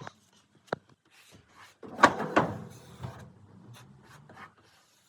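Hand work on a car door panel: a sharp click a little under a second in, then a loud scraping rub about two seconds in, followed by lighter rubbing and small ticks.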